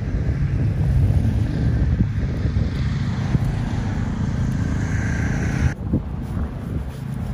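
Wind buffeting the microphone in a steady low rumble. Over it runs a motor whine that rises in pitch over the second half and cuts off suddenly a little before the end.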